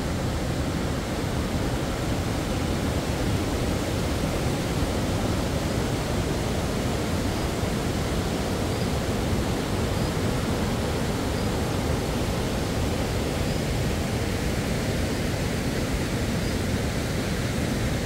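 Steady rushing roar of a swollen mountain river in monsoon spate, running fast over rocks as white water.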